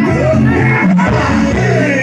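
Loud live jaranan dor music from the troupe's band, with a voice singing over it.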